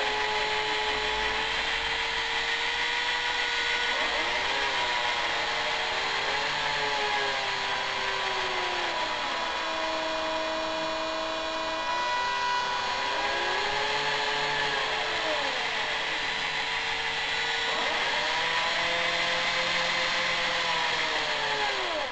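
Two cordless drill motors running under gamepad control through an Arduino, their whine rising and falling over and over as the stick speeds up and slows each one.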